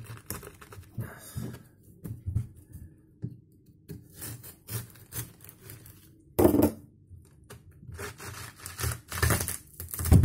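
A kitchen knife cutting through a whole watermelon, the rind crackling and tearing in short bursts as the blade works through it and the melon is pried open. There is a loud thump about six seconds in and another near the end as the melon comes apart into halves.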